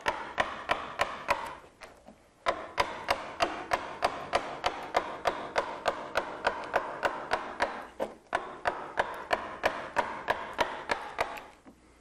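Wooden carver's mallet striking a large woodcarving gouge in quick, even blows, about three a second, driving it through the wood in roughing cuts. The run breaks off briefly twice.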